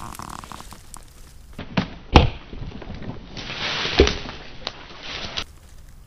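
Footsteps on old weathered wooden planks: four hollow thuds, the loudest about two seconds in, with a stretch of rustling from dry leaves and grass.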